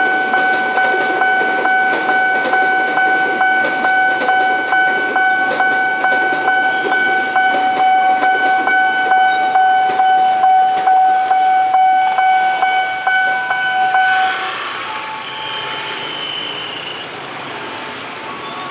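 KRL electric commuter train passing over a level crossing, its wheels clicking over the rail joints, under the crossing's warning alarm sounding one steady high tone. About fourteen seconds in the alarm cuts off suddenly as the crossing clears, leaving road traffic waiting at the barrier.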